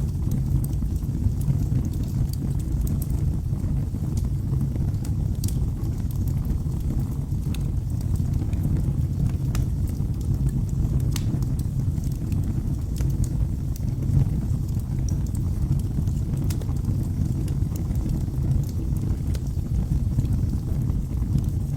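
Wood fire burning in a fireplace: a steady low rumble of flames with scattered sharp crackles and pops from the burning logs.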